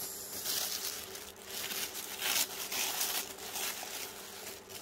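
Tissue paper rustling and crinkling in irregular bursts as hands rummage through a gift bag and draw out packaged items.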